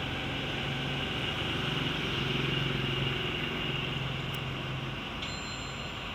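A passing motor vehicle: a low engine hum that swells and then fades away over a few seconds.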